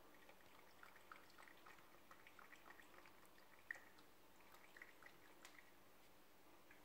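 Bengal cat lapping water from a stainless-steel sink: faint wet ticks, several a second, with one sharper click just past the middle.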